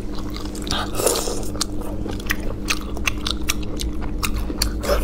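Close-miked chewing of sea snail meat in spicy sauce: a run of short, wet mouth clicks and smacks. A steady low hum sits underneath.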